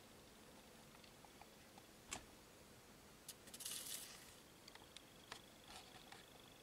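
Faint sounds of a small brass spinning top on a flat board: a sharp tick about two seconds in, then a short scraping rattle near the middle as the slowing top wobbles and falls onto its side, followed by a few light ticks.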